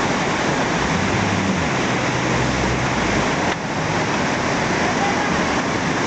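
Steady rush of waterfall and river rapids, with a boat's motor humming low underneath.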